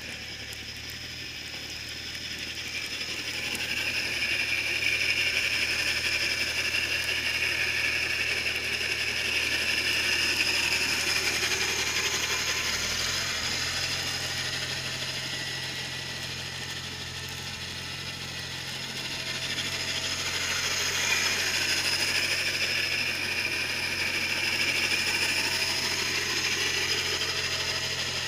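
John Deere 318 garden tractor's twin-cylinder engine running under load with a Model 49 snowblower clearing snow, with the blower's rushing noise swelling and fading twice. The engine's tone shifts about halfway through.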